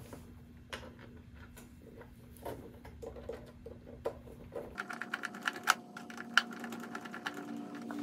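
Light, irregular clicks and taps of small screws, nuts and a screwdriver being handled while a cover is fitted onto a metal power-supply case. The clicking gets busier and sharper about five seconds in.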